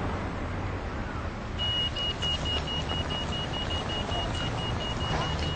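Pedestrian crossing signal starting to beep about a second and a half in, a high thin tone repeating rapidly, several beeps a second. Road traffic rumbles steadily underneath.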